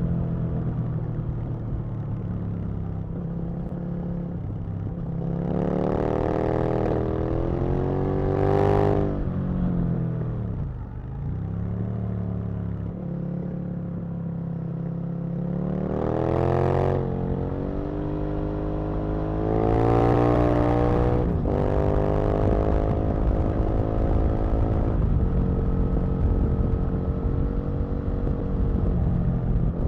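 Aprilia RSV Mille's 998 cc V-twin engine under way, heard from the rider's seat: the revs climb and drop three times as the bike accelerates and shifts or backs off, then hold fairly steady near the end.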